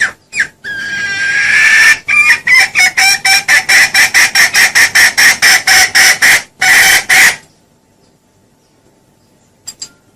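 Junglefowl calling loudly: a drawn-out rising call, then a fast run of clucks at about five a second for some four seconds, ending in one longer call.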